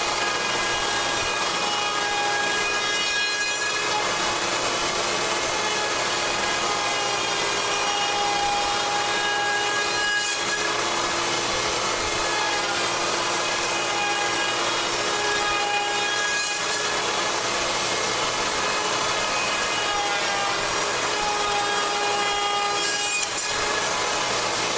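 Handheld router running under load as it cuts a 12-to-1 scarf slope into white ash gunnel stock in a scarfing jig: a steady motor whine over the noise of the bit chewing wood, with a short dip about every six to seven seconds as the router is moved along the jig.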